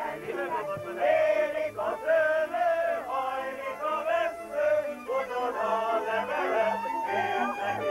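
Live band music with a violin over a steady bass beat, with a group of voices singing along.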